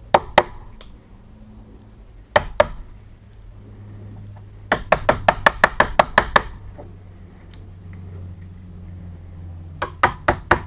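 Wood chisel being struck into the soft pine edge of a hollow-core door to mark out and cut the latch recess. Sharp knocks: two pairs, then a quick run of about ten, then another run near the end.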